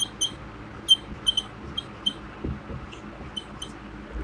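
Marker squeaking on a whiteboard while writing, a dozen or so short, high squeaks at irregular intervals.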